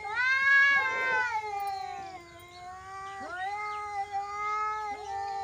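Domestic cat yowling angrily in long, drawn-out caterwauls: a loud one that rises and falls in pitch over about two seconds, then a second, and a third starting near the end.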